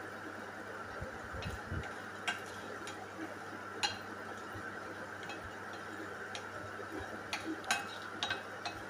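Flat spatula stirring fenugreek seeds and whole red chillies in hot mustard oil in a nonstick kadhai: scattered sharp ticks and clicks over a steady faint hiss.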